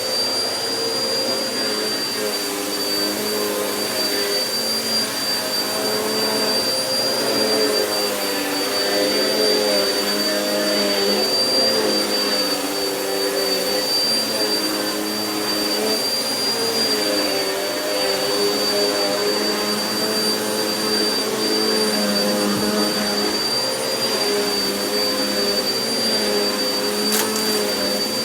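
Vacuum cleaner running continuously on carpet, with a steady high whine. Its motor pitch dips and rises slightly as it is pushed back and forth over the pile.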